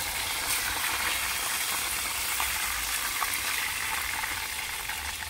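Silver snapper pieces frying in hot oil in a pot, a steady sizzle, with a few light clicks of a utensil against the pot.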